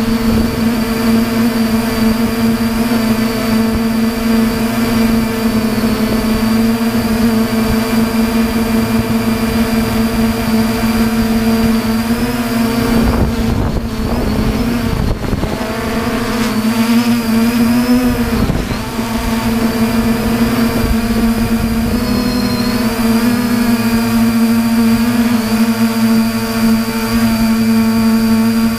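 3DR Iris+ quadcopter's electric motors and propellers running with a steady multi-tone hum, picked up by the GoPro mounted on the drone. The pitch wavers about halfway through and again a few seconds later as the motors change speed.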